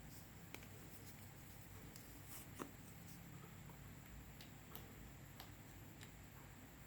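Faint, sparse sticky clicks and pops of clear slime being worked by hand, the clearest about two and a half seconds in, over a quiet hiss.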